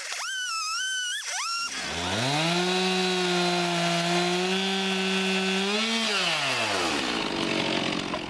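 Stihl chainsaw in a chainsaw mill, fitted with ripping chain and ripping lengthwise through a red oak log. A high whine in the first second and a half gives way to the engine climbing back up to a steady pitch held for about four seconds, then it lifts briefly and winds down about six to seven seconds in.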